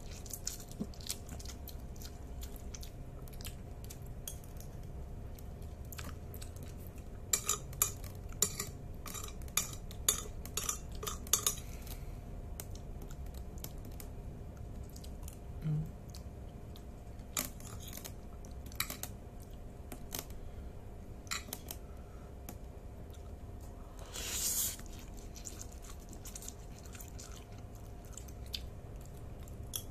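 Metal spoon clicking and scraping against a black plate while eating instant noodles, with soft chewing. The clicks come in a quick cluster about a third of the way in, then only now and then.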